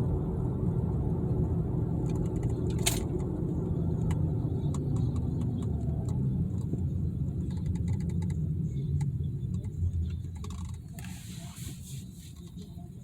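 Harley-Davidson V-twin engine running steadily through its stock exhaust, a deep even rumble. A sharp click comes about three seconds in, and the engine sound drops in level about ten seconds in.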